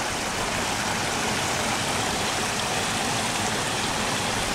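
Steady rush and splash of water pouring from water slides into a swimming pool.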